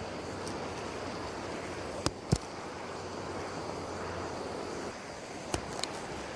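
Mountain stream running steadily, with two pairs of short sharp clicks, one about two seconds in and one about five and a half seconds in.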